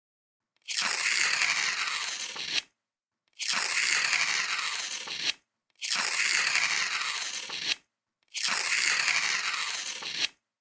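A tiny hand-held digging tool scraping through fine sand, four long strokes of about two seconds each with silent gaps between them.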